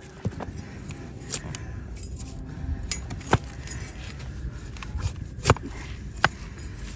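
A broad flat farrier's blade paring a donkey's hoof: scraping and cutting of hoof horn, with a few sharp cracks as the blade goes through, the loudest about five and a half seconds in.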